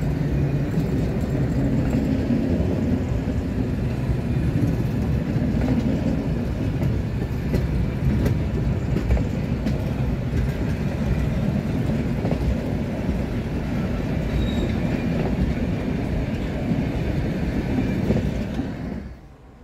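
Vintage passenger coaches of a steam-hauled museum train rolling slowly past, a steady rumble with wheels clicking over the rail joints. The sound cuts off just before the end.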